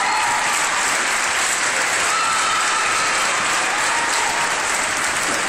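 Audience applauding steadily in an ice rink after a figure-skating routine ends, with a few short high held tones over the clapping near the start and about two seconds in.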